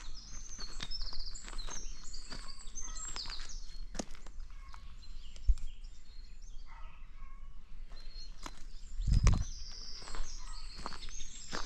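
Free-ranging chickens: many short, high chirps and peeps over scattered clicks and scuffs, with a low thump about nine seconds in.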